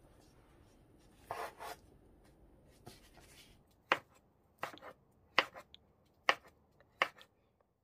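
Kitchen knife slicing a thin egg omelette into strips on a bamboo cutting board: five sharp knocks of the blade on the board in the second half, about one every 0.7 seconds, after a softer rustle a little over a second in.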